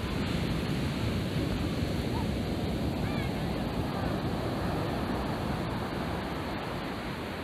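Surf breaking and washing up on a sandy beach: a steady rushing noise.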